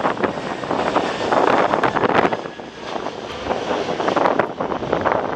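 Jet noise of an Airbus A321-211 on approach with its gear down, its CFM56 engines a rushing sound that rises and falls in gusts, with wind buffeting the microphone.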